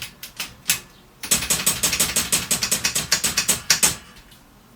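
1950 Mercedes office typewriter clicking as its backspace key is worked, each press stepping the carriage back one space. A few separate clicks come first, then a fast run of clicks, about seven or eight a second, for nearly three seconds that stops abruptly.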